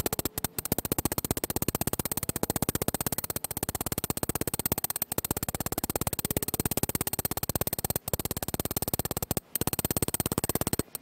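Small ball-peen hammer tapping rapidly on the steel screw of a Prentice vise, about ten quick even taps a second with a few brief breaks, peening a burr back into place.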